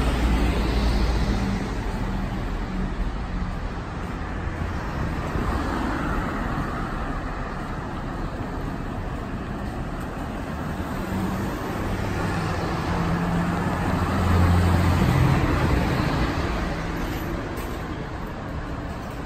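Road traffic on a multi-lane city street: a steady rush of cars passing with low engine hum, one vehicle going by louder about three quarters of the way through.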